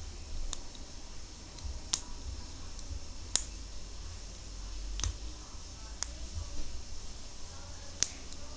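Small plastic Lego pieces clicking as they are handled and pressed together: about six sharp clicks at irregular gaps of one to two seconds, over a low handling rumble.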